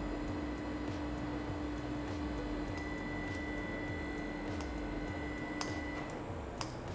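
Faint clicks of a stainless piston funnel's valve opening and shutting as it deposits mango jelly into silicone moulds, over a steady electrical hum with a high faint whine. The clicks come at irregular intervals, a couple more noticeable near the end.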